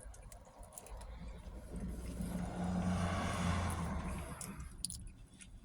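A car passing by: a low engine hum with tyre rush that swells for a couple of seconds and fades away, with a few small clicks and rustles near the microphone.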